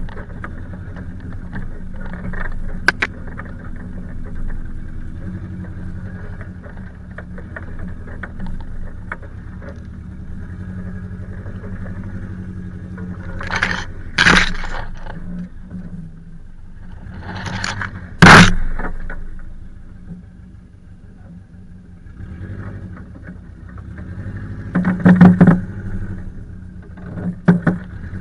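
Subaru Forester S/tb's turbocharged flat-four engine running steadily at crawling speed, with pine branches scraping and snapping against the car's body in several loud bursts, the loudest about two-thirds of the way through.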